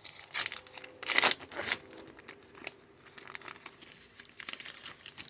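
A plastic foil trading-card pack wrapper being torn open and crinkled, in a few crackling bursts, the loudest about a second in and more near the end.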